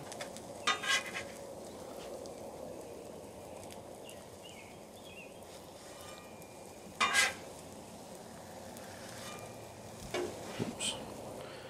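Potato cakes sizzling steadily in bacon grease on a steel griddle top. A metal spatula scrapes sharply across the griddle a few times, at about one second, about seven seconds and near the end, as the cakes are lifted off.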